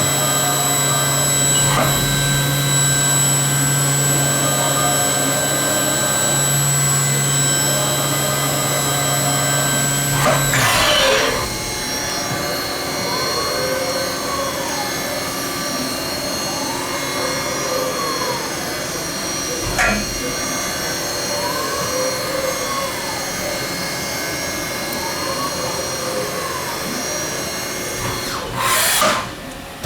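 Haas VF-3 CNC vertical machining center's spindle running at 8,400 RPM, a steady whine with several fixed tones over a low hum. About eleven seconds in, the hum stops and the sound drops a little. After that a tone rises and falls in a slow arch about every four seconds, and there is a short loud burst near the end.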